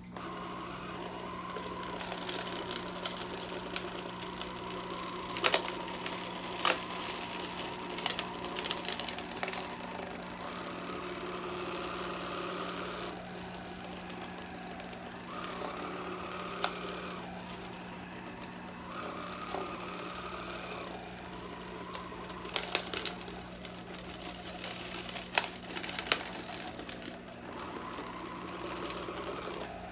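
Black & Decker 4.8 V cordless carpet sweeper's small motor humming steadily as it is pushed back and forth over carpet. The brush scrapes, swelling and fading with each stroke, and it picks up loose dirt and crumbs with a few sharp clicks and rattles of debris.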